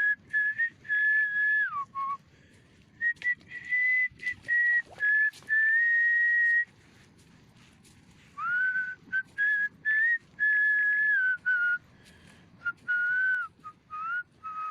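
Green pigeon (punai) call: a series of clear whistled notes, held, stepping and sliding up and down, in two phrases with a pause of nearly two seconds between them; the first phrase ends in a falling slide.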